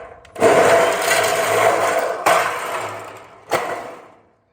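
Makita portable band saw cutting through a metal gutter, with the motor running under load and the cut surging again about two and three and a half seconds in before the saw winds down near the end. The blade's coarse teeth bite too fast, making the cut jumpy.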